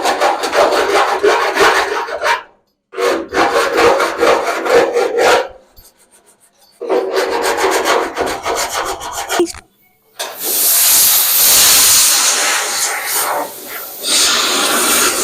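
Hand sanding on a car's body panel with sandpaper over a homemade foam block: three runs of quick back-and-forth rubbing strokes with short pauses between them. About ten seconds in, a loud steady hiss takes over.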